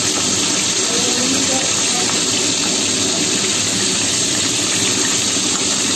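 Bhola fish fritters wrapped in bottle gourd leaves sizzling steadily as they deep-fry in hot oil.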